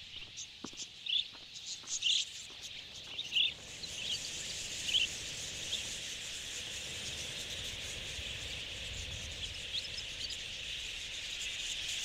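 Wild budgerigars calling: scattered short high chirps at first, then, from about four seconds in, the dense, unbroken chatter of a huge flock.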